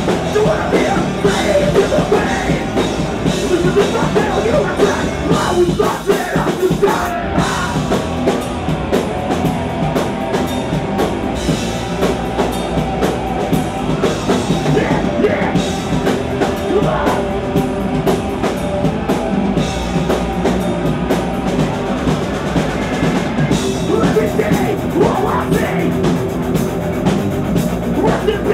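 Live rock band playing loud in a small room: electric guitars and a drum kit, with a vocalist singing into a handheld microphone.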